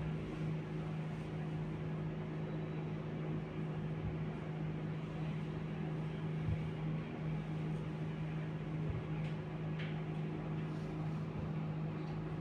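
Steady low mechanical hum from a running motor or appliance, even throughout, with a couple of faint clicks.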